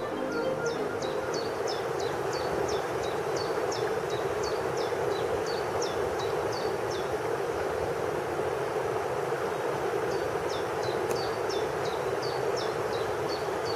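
Stream water pouring over a small concrete weir and rushing down a rocky channel, a steady rush. Over it a small bird repeats a short high falling note about three times a second, stops for a few seconds in the middle, then starts again.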